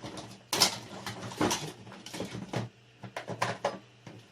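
Irregular clicks, knocks and scrapes of small objects being handled on a workbench, over a low steady electrical hum.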